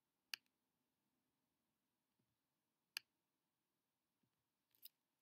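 Three sharp computer clicks spread over a few seconds, the last a quick double, against near silence.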